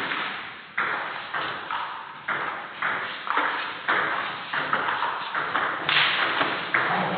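Table tennis ball being hit back and forth in a doubles rally: sharp clicks of the ball on the bats and the table, about two a second, each with a short echo.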